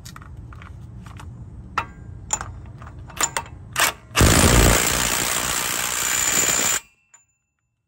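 Impact wrench hammering the center nut down onto the Silverado 2500HD's CV axle shaft, running for about two and a half seconds and stopping abruptly. A few light metal clicks come first as the socket goes onto the nut.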